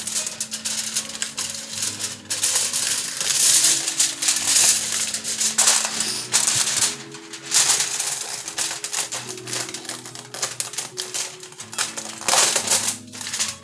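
Heavy-duty aluminum foil crinkling and rustling in repeated bursts as it is pulled off the roll and pressed down over a baking dish, with background music underneath.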